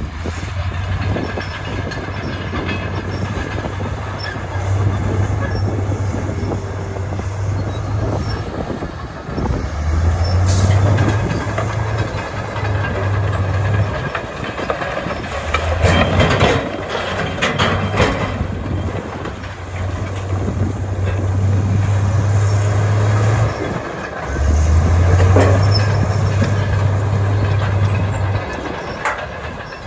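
Heavy diesel earthmoving machinery working: a low engine drone that eases off and picks up again every few seconds as the load changes, with bursts of clanking and knocking about halfway through.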